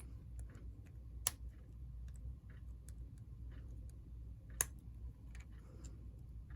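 Small parts of a model locomotive's drive clicking faintly as they are handled and slid into place, with two sharper clicks, one about a second in and one past the middle, over a faint low hum.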